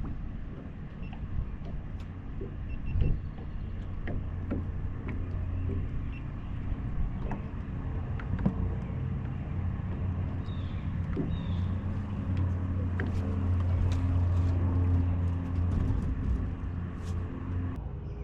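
A boat motor runs with a steady low hum, growing louder for a few seconds past the middle. Scattered light knocks and clicks come over it, with one louder knock about three seconds in.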